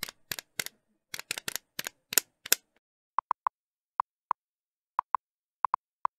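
Text-typing sound effect. The first half is irregular sharp key-like clicks; from about three seconds in come short high electronic blips, a few a second, one for each character.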